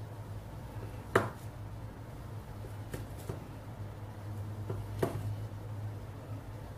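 Chef's knife cutting through soft brie cheese and knocking on a bamboo cutting board: several short sharp knocks, the loudest about a second in and others around three and five seconds, over a steady low hum.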